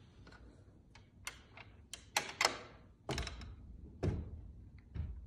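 An original wooden pocket door being slid out of its wall pocket, its old hardware still working: a run of small clicks and knocks, then heavier thuds about three and four seconds in.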